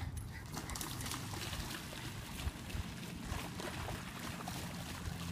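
Dogs plunging into a pond and paddling through the water, a steady wash of splashing with many small spatters.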